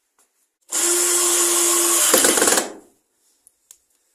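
Electric mitre saw started up, its motor running with a steady whine for about a second, then cutting through a wooden batten, the sound rougher during the cut, before it stops just under three seconds in.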